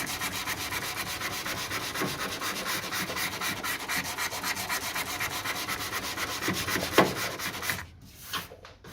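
Dry hand sanding of body filler on a car door sill with 180-grit paper, in quick, even back-and-forth strokes, working out the coarser 80-grit scratches. There is a sharp knock about seven seconds in, and the sanding stops just before the end.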